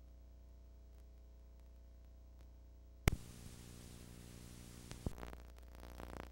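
Faint electrical hum from a videotape playback. About three seconds in, a sharp click as the recording breaks off, followed by steady tape hiss and static with a few crackles.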